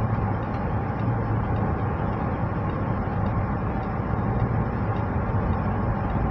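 Steady cabin noise of a car cruising at highway speed: a low, even drone of engine and tyres on the road.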